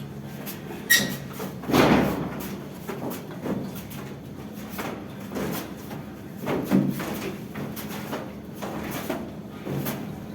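Plastering tools working plaster: irregular rough scraping strokes, with a sharp metallic clink about a second in and a louder stroke right after it.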